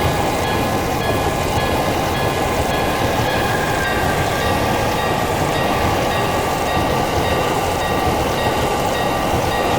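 Electric train running past at a railroad crossing: a steady, loud rumble of wheels on rails with no break. Thin high tones sound steadily over it.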